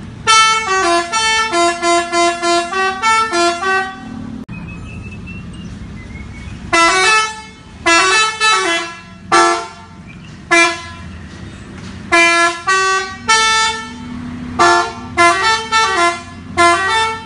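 Telolet musical horn playing a tune of quick stepping notes: a long run of notes in the first few seconds, then shorter phrases and single toots with pauses between them. A low steady hum runs underneath.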